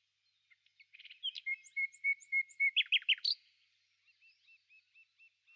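Small songbird singing: a run of chirps and quickly repeated short notes, loudest about one to three seconds in, followed by a fainter series of short notes.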